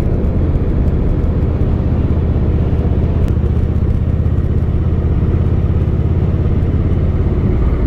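Harley-Davidson motorcycle engine and exhaust running steadily while riding along at an even speed.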